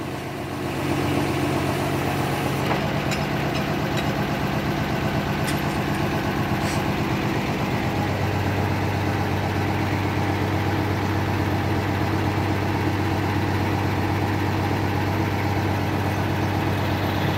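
Truck engine running steadily; it comes up in level about a second in, and its low note drops slightly about eight seconds in.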